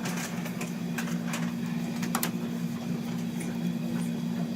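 A steady low hum throughout, with a few faint clicks and rustles from tape being handled.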